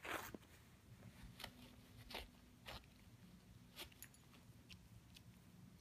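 Dog tearing and chewing a paper towel: a few short, scattered crinkles and rips of paper, the loudest right at the start.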